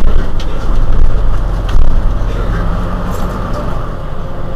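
Mercedes-Benz Citaro C2 city bus engine idling while stopped, a steady low rumble, with a couple of light clicks in the first two seconds.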